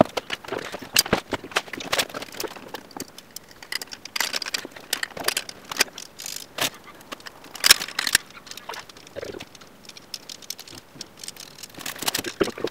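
Irregular clicks, clinks and knocks of a steel axle frame and hand tools being handled as the axle is bolted back onto a trike frame, with one louder knock a little past halfway.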